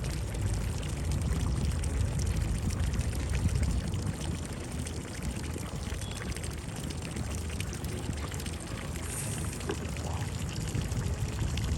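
Steady splashing and sloshing of water as a large fish is played and hauled in on a hand line, with a low steady rumble underneath.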